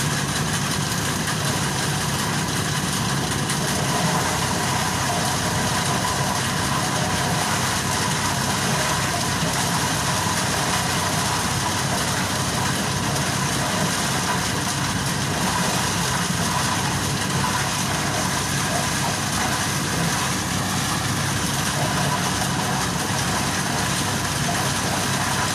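Engine-driven corn threshing machine running steadily, a constant engine drone under a dense mechanical rush.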